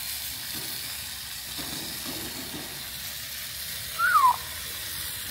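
Steady hiss of food sizzling on a gas grill. About four seconds in there is a short, loud squeak that falls in pitch.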